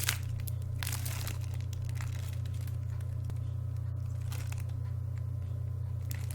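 A few short crinkling, rustling strokes of a thin paper book being handled and turned over, over a steady low hum.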